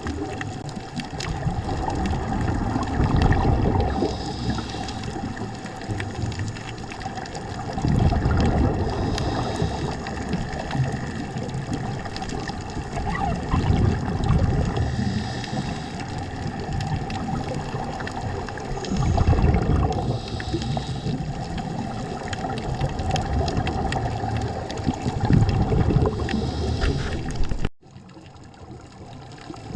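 Underwater sound of a scuba diver breathing through a regulator: a loud rush of exhaled bubbles every four to six seconds, each followed by a short hiss, over a steady hum. The sound drops sharply near the end.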